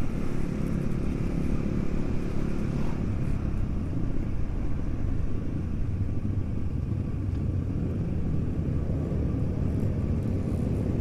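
Supermoto motorcycle running steadily while being ridden at a constant pace, its engine blended with steady road and wind noise.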